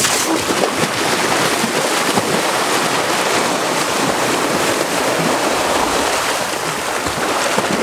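Loud, steady rushing and splashing of water churned white by California sea lions thrashing at the surface.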